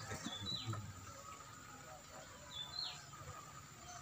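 A bird calling twice, about two seconds apart: each call a short high whistle that slides quickly down in pitch. Faint and distant, over outdoor background noise.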